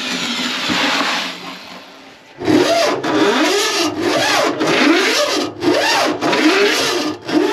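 Power drain auger clearing a grease-clogged kitchen sink drain line. A steady whirring fades out in the first two seconds; then the machine runs in a string of short bursts, its pitch rising and falling each time.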